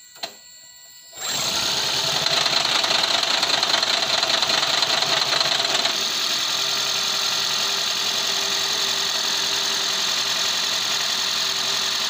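The 1.5-litre four-cylinder petrol engine of a Toyota Aqua (Prius C) hybrid starts suddenly about a second in, with no cranking, and runs steadily at idle. It is a little louder for the first few seconds, then settles slightly. This is the engine's first start after a leaking intake manifold, which was causing the misfire and the lean code, was replaced.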